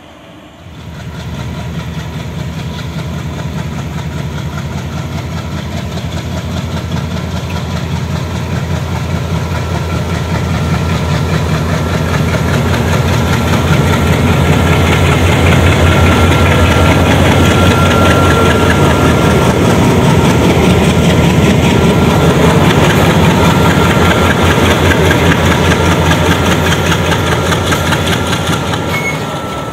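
Diesel engine (ALCO 251) of a RITES WDG-3A diesel-electric locomotive running as it hauls empty BOXNHL wagons at shunting speed. The engine starts about a second in, grows louder as the locomotive comes close and passes, then eases a little near the end, with a steady high whine over it.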